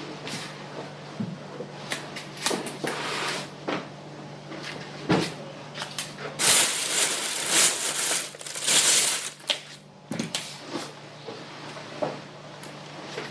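Household tidying: objects knocked, clunked and set down like cupboard doors and things being put away, with about three seconds of loud, rough hissing noise in the middle, over a faint steady low hum.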